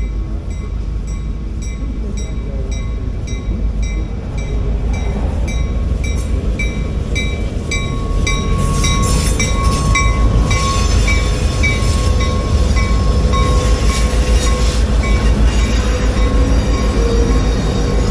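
Reading & Northern EMD GP38-2 diesel locomotive, a 16-cylinder two-stroke, passing close by at the head of a passenger train. A deep engine rumble grows louder as the locomotive goes by, about eight to ten seconds in. A bell rings at about two to three strokes a second through the first part, then comes the clatter of coach wheels on the rails.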